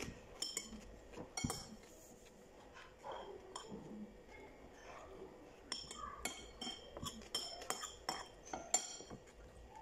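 Metal spoon clinking and scraping against a ceramic plate while scooping up fried rice: a few clinks in the first couple of seconds, then a quick run of clinks in the second half.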